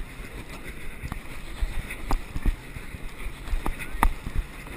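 Wind buffeting a head-mounted action camera's microphone as the fire performer spins, a steady low rumble broken by several short sharp knocks or whooshes, the strongest about four seconds in.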